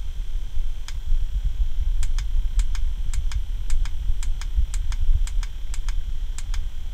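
Small USB LED clock fan running, with a steady faint high whine over a low rumble. A run of sharp ticks starts about a second in and comes in quick pairs about twice a second.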